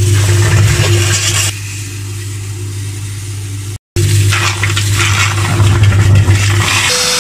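Water gushing and splashing through a pond filter over a steady low electric hum, with abrupt changes where short clips are cut together and a brief dropout about four seconds in.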